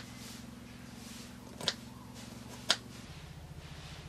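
Kitchen knife cutting through vegetable pieces onto a wooden cutting board: two sharp chops about a second apart, over a low steady background hum.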